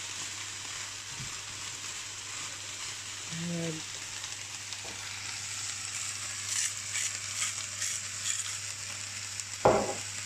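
Sliced potatoes with ham and onions sizzling steadily in a frying pan on the hob, stirred with a plastic spatula. A few light clicks come past the middle, and a sharp knock sounds near the end.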